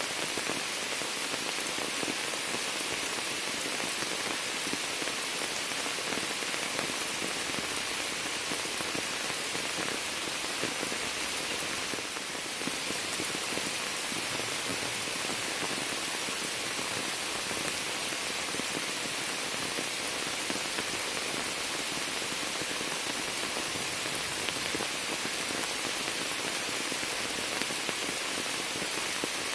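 Steady rain splashing onto standing floodwater and the leaves of a shrub, an even hiss of drops.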